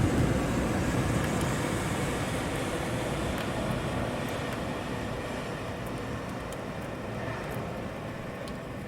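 City rain ambience: steady rain noise with traffic on a wet street, a vehicle's rumble loudest at the start and fading away, and scattered sharp drips.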